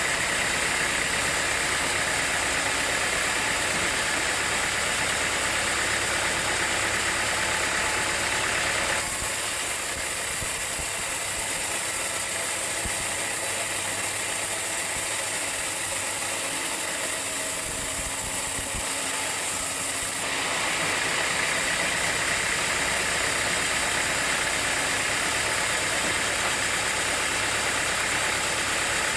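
Sawmill machinery running with a steady mechanical noise, a dense hiss over an engine-like hum. It eases off about nine seconds in and picks up again around twenty seconds.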